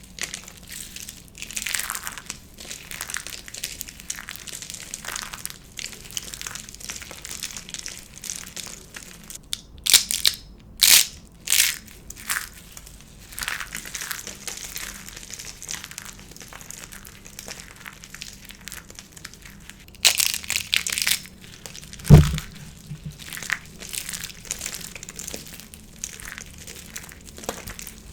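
Dry soap being crushed and snapped: a long run of crisp crackling crunches, with louder bursts around ten and twenty seconds in and one sharp low thump a little after twenty seconds.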